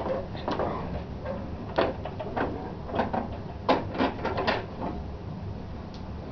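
Irregular clunks and clicks of an antique cast-iron Emmert pattern maker's vise being worked by hand, its metal parts knocking as it is moved and set.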